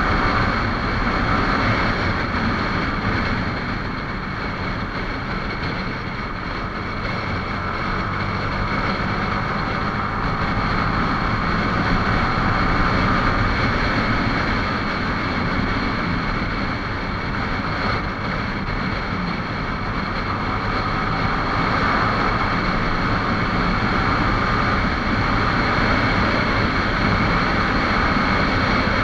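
Yamaha R15 motorcycle's 155 cc single-cylinder engine running steadily at road speed, heard from the rider's seat mixed with rushing wind.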